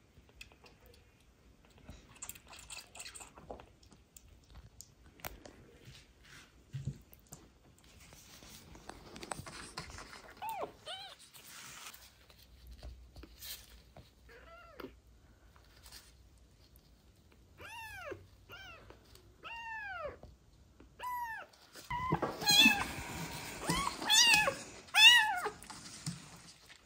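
Young kittens mewing repeatedly in short, high cries that rise and fall in pitch, sparse at first and coming thick and loud in the last few seconds. Faint clicks and handling noises come before the cries.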